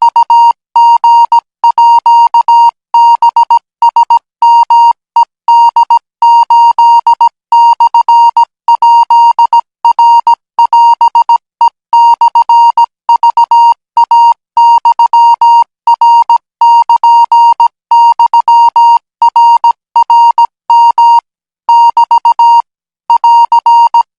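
Morse code practice signal at 20 words per minute: a steady tone of just under 1 kHz keyed on and off in short and long pulses, sending Thai Morse code.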